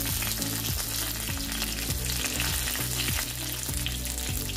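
Curry leaves and dried red chillies frying in hot oil in a non-stick pan for a tempering: a steady sizzle with many small crackles, the fresh curry leaves spitting in the oil. Near the end a silicone spatula stirs them through the pan.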